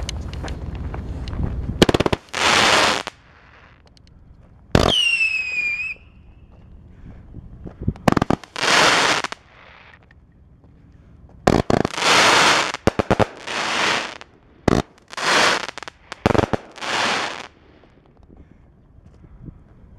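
Daytime fireworks cake (Red Apple Triumph Daytime Celebration, 500 g) firing shots one after another at uneven spacing. Each shot is a sharp pop followed by about a second of loud hissing, and one shot about five seconds in gives a falling whistle.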